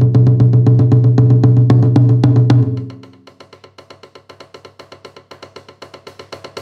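Roland TAIKO-1 electronic taiko playing its EasyNagado (nagado-daiko) sound: a fast, even run of booming drum strokes at about seven a second. A little under three seconds in, it drops suddenly to much quieter, lighter strokes that keep the same pace.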